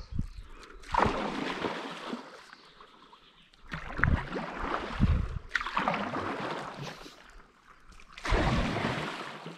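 Stand-up paddleboard paddle strokes in river water: four splashing strokes a couple of seconds apart, each fading within about a second.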